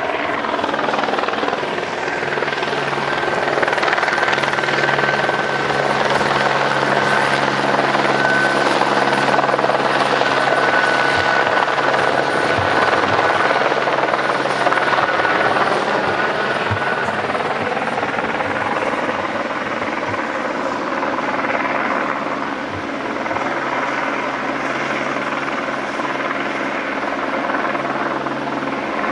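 Helicopter running steadily, its rotor and engine noise constant, with a high whine that fades out a little past the middle.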